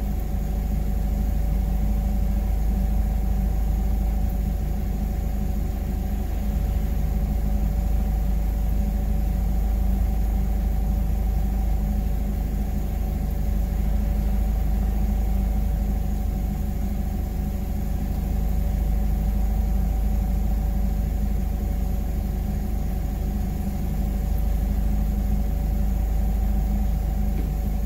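Forklift engine idling steadily, a constant low rumble with a steady whine on top.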